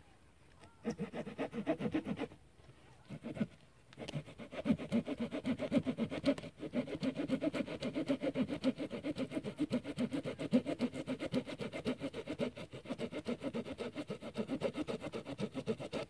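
A hand saw cutting a dry branch, in quick even back-and-forth strokes at about four a second. It stops twice briefly near the start, then saws on without a break.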